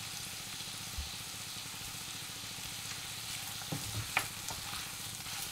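Chicken strips with onion and spices sizzling in oil in a nonstick wok, a steady frying hiss, with a few spatula scrapes a little past halfway as the pieces are stirred. This is the bhuna stage, the chicken being dry-fried with its masala.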